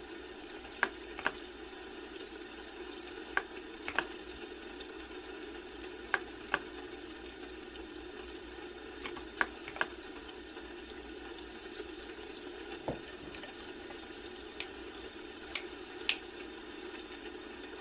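Computer keyboard keys tapped sparsely: a dozen or so single clicks, several falling in pairs about half a second apart, over a steady low background hum.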